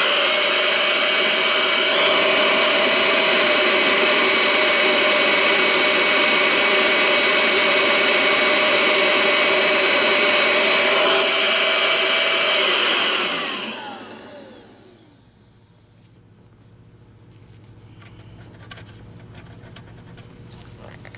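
Oreck XL21 upright vacuum's motor, running with the housing open: it starts at once and runs steadily for about thirteen seconds, then is switched off and winds down with falling pitch. After that come faint clicks and rubbing as hands work on the motor.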